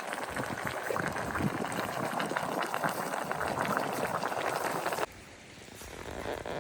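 Water bubbling and gurgling, a dense busy crackle of small bubbles that cuts off abruptly about five seconds in.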